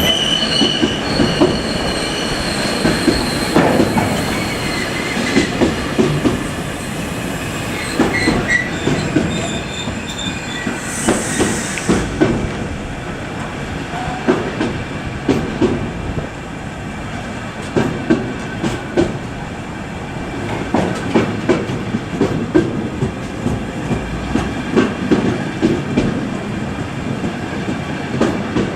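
Train running past on the tracks, its wheels squealing for the first ten seconds or so, with repeated clacks of wheels over rail joints throughout.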